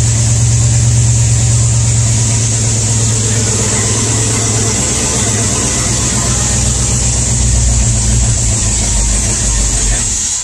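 V8 engine running steadily through an exhaust full of holes, now firing on all eight cylinders after a broken pushrod was replaced, so it runs much better than before.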